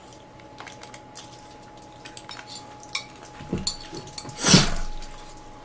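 Chopsticks and forks clicking and scraping against ceramic pasta plates and a bowl in light, scattered clinks, over a faint steady hum. A louder, short breathy sound comes about four and a half seconds in.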